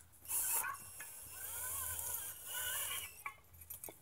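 Cordless power driver running a mounting bolt into a rear disc-brake caliper bracket: a short burst, then a longer run of about two seconds with a wavering motor whine.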